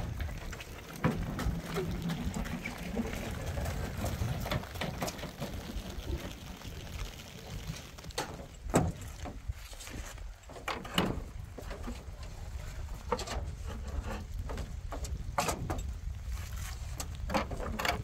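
Ceramic floor tiles clacking and knocking as they are handed down from a pickup truck bed and set into a metal wheelbarrow, with sharp, irregular knocks coming thickest in the second half. Underneath is a steady low wind rumble on the microphone.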